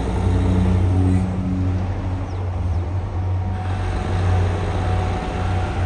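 Excavator's diesel engine running under load with a steady low rumble.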